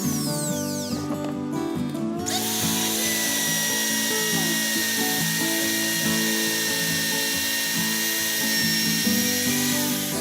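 Background music over a woodworking power tool running with a high whine. The tool cuts out for about a second near the start, then runs steadily again.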